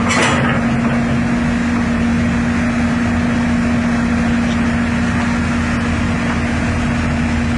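Caterpillar 319D LN excavator's diesel engine running steadily, with a strong even hum. A short burst of noise comes just after the start.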